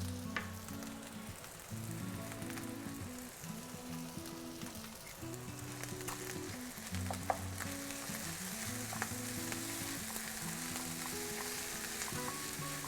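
Kimchi fried rice sizzling in a hot pan, with a few light clicks of a utensil stirring it. Soft background music plays underneath.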